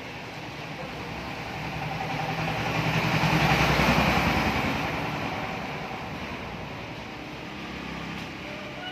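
A vehicle passing by: its noise swells to a peak about four seconds in and fades away again.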